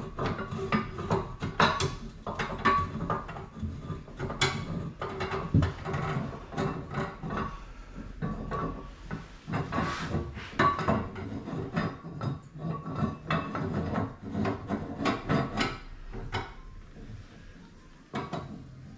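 Irregular metallic clicking and clunking as a radiator assembly key is turned inside cast iron radiator sections, tightening the connecting nipples to draw the sections together. The clicks thin out about three seconds before the end.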